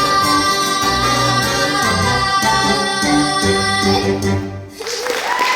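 Musical theatre number: voices singing long held notes over a recorded orchestral accompaniment with a steady bass line. The music thins out about four and a half seconds in, with a brief burst of noise near the end.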